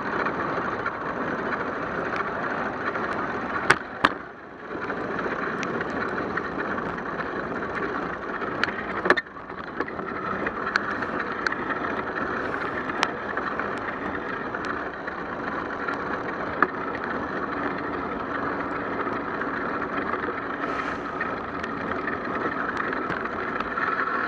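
Bicycle riding on wet pavement: a steady hiss of tyres on the wet road and air rushing past the mounted camera, broken by a few sharp knocks as the bike and camera jolt over bumps, the strongest about four and nine seconds in.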